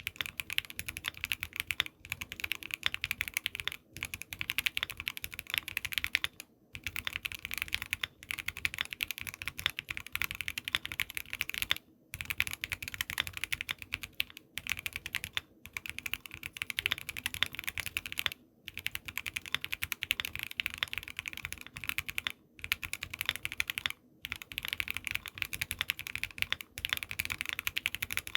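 Fast typing on a Voice65 mechanical keyboard with a polycarbonate plate, stock factory-lubed Everglide V3 Water King linear switches and Infinikey keycaps: dense runs of keystroke clicks, broken by brief pauses every two to three seconds.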